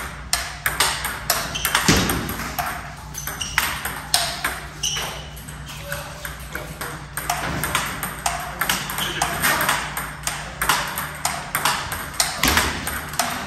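Table tennis balls clicking off paddles and tables in quick, irregular succession, from several tables in play at once.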